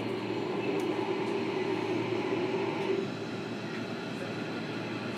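Interior running sound of a JR Kyushu 305 series electric train, heard in motor car MoHa 305-106: a steady rumble of the train under way, with a hum that fades about three seconds in.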